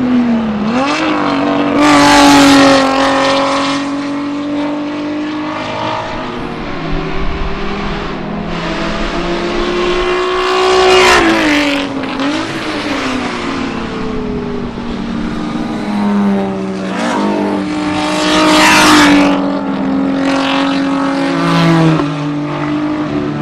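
Alfa Romeo GTV6 racing car's V6 engine at speed, passing by several times. The engine note rises and falls with throttle and gear changes, and is loudest in three swells about two, eleven and nineteen seconds in.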